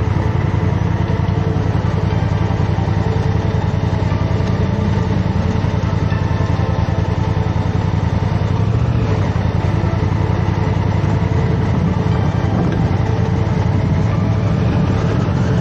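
Adventure motorcycle engine running steadily, a low, even engine note that holds at the same pace throughout.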